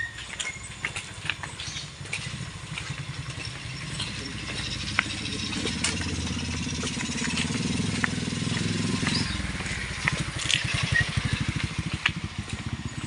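An engine running nearby with an even firing pulse. It grows louder a couple of seconds in, dips briefly about two-thirds through, then carries on, with scattered sharp clicks and taps around it.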